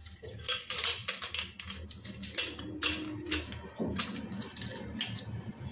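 Slate pencils clicking and clattering against each other and the steel bowl as a hand rubs and stirs them in water, an irregular run of sharp clicks.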